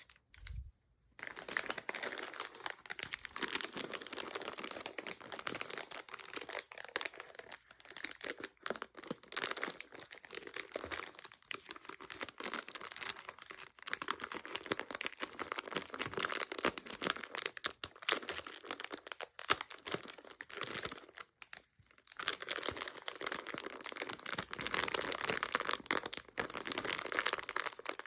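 Candy and gum wrappers being crinkled and torn open, a dense crackling rustle of plastic packaging with a couple of short pauses.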